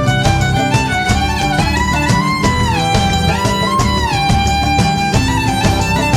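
Background music: a violin lead melody over a steady beat, sliding down between notes about two and a half seconds in and again about four seconds in.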